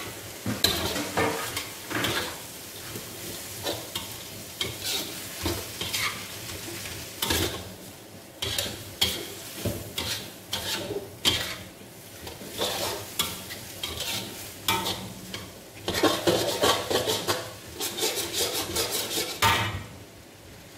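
Metal spatula scraping and clattering against a wok as noodles, greens and bean sprouts are stir-fried, with sizzling underneath. A quick run of rapid strokes comes near the end.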